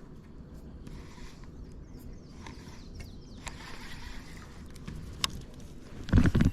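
Kayak sounds on the water: steady low rumble of water and hull with faint hiss and handling noise, a sharp click about five seconds in, and a loud, brief knock or bump near the end.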